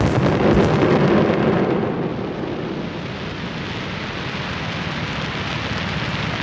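Fireworks: a dense rumbling din that is loudest for the first two seconds, then eases to a steadier, lower noise like rain.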